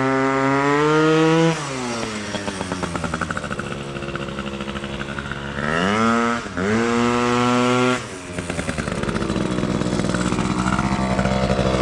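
Honda Elite's small two-stroke AF16/AF18 scooter engine running through a really loud, unrestricted pipe. It holds high revs, backs off about a second and a half in, revs up again near the middle with a brief dip, drops off, then slowly climbs near the end. The owner feels it still lacks bottom end and blames variator rollers that are too heavy.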